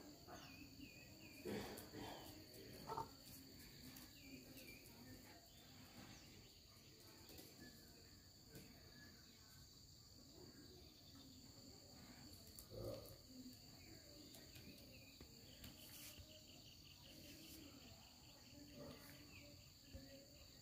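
Near silence with a faint, steady, high-pitched insect chorus throughout, a faster pulsing trill joining in about two-thirds of the way through. A few soft knocks sound near the start and once about halfway.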